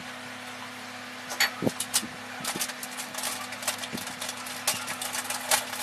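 Soldering on an inverter circuit board: irregular small clicks and crackles from about a second and a half in, over a steady low hum.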